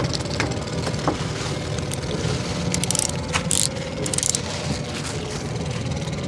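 Small boat engine idling steadily, with a few short crackling, scraping bursts about three to four and a half seconds in.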